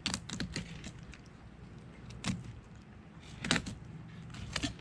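Boning knife cutting a fillet off a snapper along the backbone, with scattered sharp clicks and scrapes as the blade rides over the bones.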